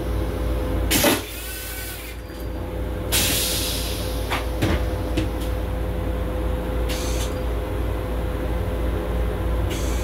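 Steady low rumble and a constant hum inside a Long Island Rail Road M7 electric railcar. Short hisses come about a second in, from about three seconds, and near seven seconds, with a sharp click near five seconds.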